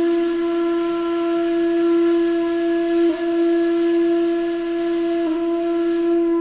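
A wind instrument holding one long, steady, reedy note, with slight catches about three and five seconds in.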